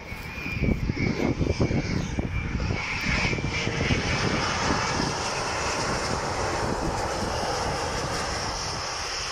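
Twin-engine jet airliner coming in to land close by, its engines a broad rushing roar that swells about three seconds in and holds steady. Wind buffets the microphone in the first few seconds.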